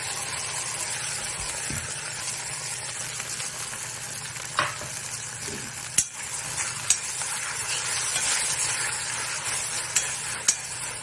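Onions and green chillies sizzling in a kadai as a thick ground masala paste is stirred in, a metal spoon clicking and scraping against the pan a few times from the middle on.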